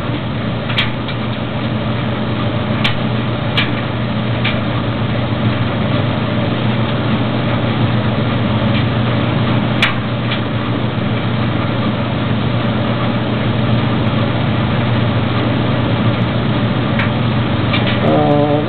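Maytag DG608 gas dryer running: a steady machine hum from the drum motor and tumbling drum, with a few sharp clicks scattered through it.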